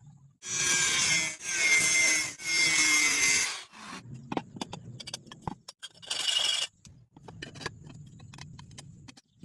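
A tool cutting a metal pipe: three loud strokes of about a second each, a shorter one about six seconds in, with clicks and knocks between.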